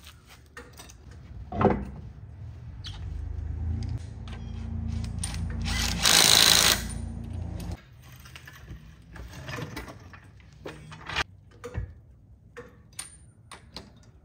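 Power tool on a car's wheel, most likely a cordless impact wrench running the lug nuts on: a motor hum that builds for several seconds, a loud rattling burst about six seconds in, then a sudden stop. Scattered metal clicks and clanks of the jack and hand tools follow.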